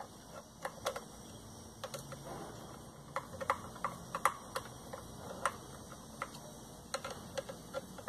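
Screwdriver driving screws inside a vacuum cleaner's motor housing: irregular small sharp clicks of the metal tip and screws, one or two a second.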